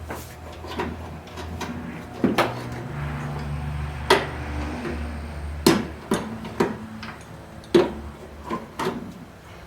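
Irregular clanks and clinks of hand tools and metal parts being handled and set down, a dozen or so knocks at uneven intervals, over a steady low hum.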